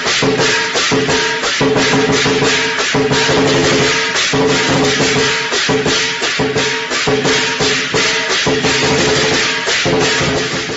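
Background music with a quick, steady percussion beat.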